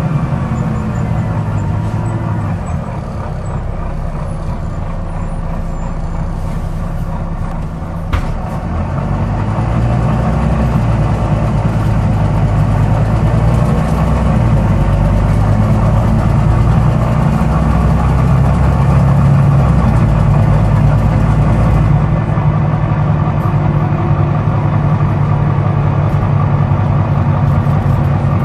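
Volvo B9TL double-decker bus's six-cylinder diesel engine running, with one sharp click about eight seconds in. The engine grows louder a second or two after the click.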